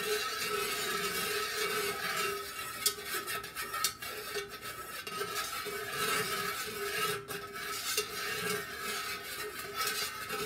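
A metal whisk stirring slowly inside an aluminium candle-pouring pitcher of melted wax: continuous scraping against the pitcher wall with a few sharp clinks, over a steady hum. The stir mixes in newly added fragrance oil.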